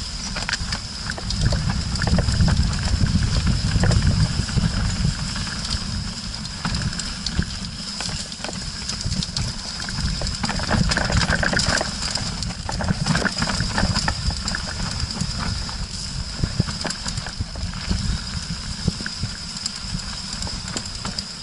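Canyon Strive mountain bike descending a rough dirt and gravel trail, heard through an action cam's microphone: continuous low rumble of wind and trail vibration with a constant clatter of clicks and knocks from tyres on stones and rattling bike parts.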